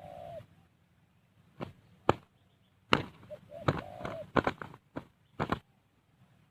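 Spotted dove cooing, with the tail of one call at the start and a short note followed by a longer warbling coo near the middle. About eight sharp slaps and knocks come between and over the calls; the loudest are a couple of seconds in.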